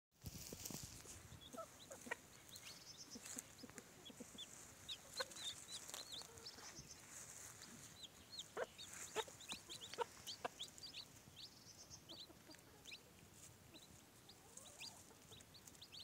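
Faint, many short high peeps from young chicks, scattered through the whole stretch. A Gauloise dorée saumon hen clucks softly a few times among them, the low clucks of a mother hen feeding with her brood.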